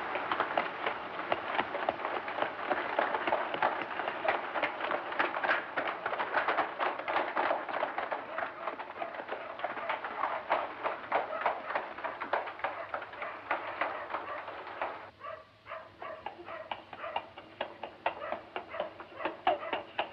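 Many children's shoes running on cobblestones, a dense, irregular clatter of footsteps. About three-quarters through it thins to one runner's quick, evenly spaced footfalls.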